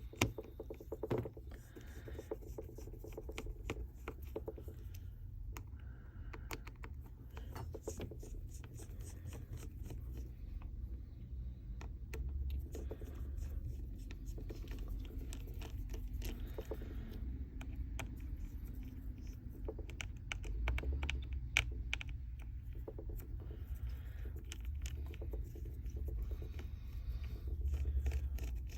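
Small hand tools working on a smartphone being taken apart: scattered sharp clicks and short scrapes of tools on the phone's parts, over a low steady hum.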